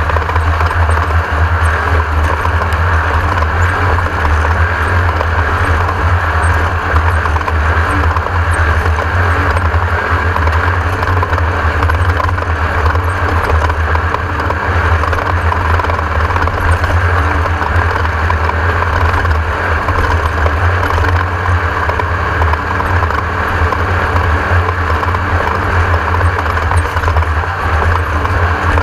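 Class 1600 off-road race car with its air-cooled 1600 cc VW engine running steadily at speed, a loud constant drone with no let-up.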